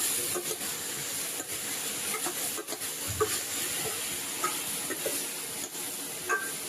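Chopped mixed vegetables sizzling in hot oil in a kadhai as they are sautéed and softened, with a steady hiss and scattered light scrapes and taps of the spoon stirring them around the pan.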